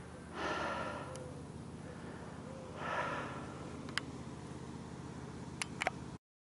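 Two short breathy sounds from a person, about half a second and three seconds in, a few sharp clicks, the last ones clustered near the end, and a steady low hum underneath.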